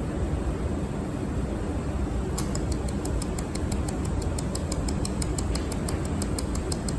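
Pulsed mold-repair laser welder firing a rapid train of sharp ticks, about five a second, starting a couple of seconds in and stopping near the end, over the steady hum of the machine's cooling fan.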